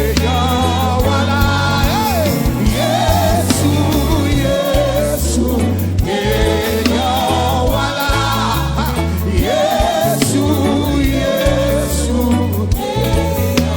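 Live gospel praise music: a choir singing over a band with a steady bass line and drums.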